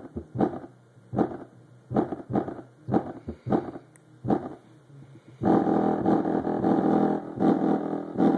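Bass-heavy music played loud through a custom 15-inch 4000-watt subwoofer. A beat hits about twice a second for the first five seconds, then gives way to a dense, unbroken stretch of bass.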